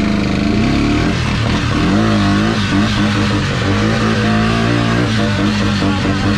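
Honda four-wheeler ATV engine running under throttle as it is ridden, its pitch rising and falling as the rider works the throttle.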